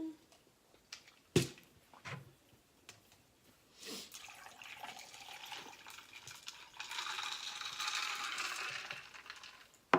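A sharp knock, then a drink being poured into a cup for about six seconds, the pour getting louder in its last few seconds. It ends with a sharp click, and the drink spills.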